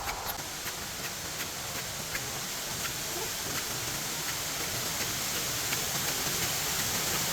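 Waterfall rushing in a steady roar of falling water that slowly grows louder.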